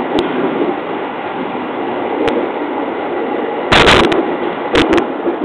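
JR East 209 series electric train running through a tunnel, a steady rumble of wheels on rail heard from the driver's cab. It is broken by several sharp crackling pops, the loudest and longest about four seconds in as the train leaves the tunnel.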